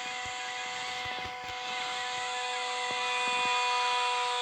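Hydraulic press running with a steady, even whine from its pump and motor while it bears down on an object, with a few faint knocks.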